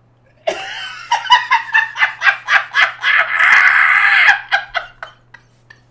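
A man laughing hard: a quick run of 'ha-ha' pulses, a long high-pitched held laugh between about three and four seconds in, then the laughter tapering off in a few short gasps.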